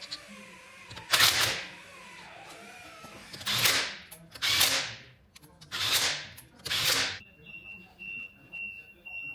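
Five short bursts of compressed-air hiss, then a steady high-pitched beeping, about two beeps a second, that starts about seven seconds in.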